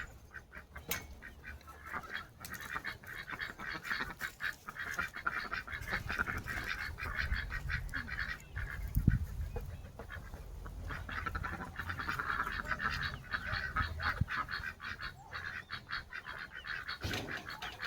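A flock of domestic ducks quacking and chattering without a break, busiest in two stretches, over a low rumble.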